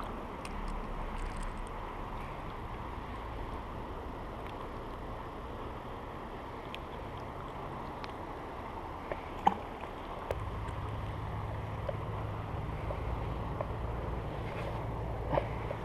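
Steady rushing of a small creek, with a low rumble underneath that gets louder about ten seconds in and a few faint clicks.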